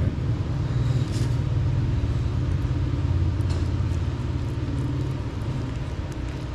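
Steady low background rumble, with a faint steady high tone above it.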